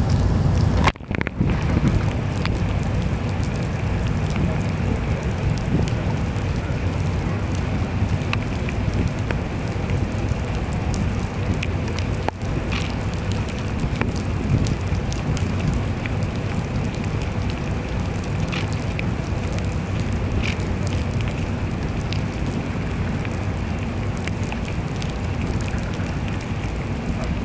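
Heavy rain falling steadily, a dense hiss over a low rumble, with occasional sharp ticks of drops striking nearby.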